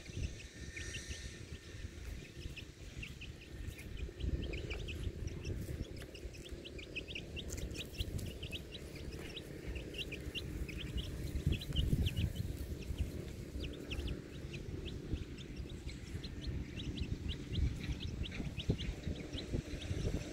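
Birds calling in many short, quickly repeated high notes, over a low, uneven rumble.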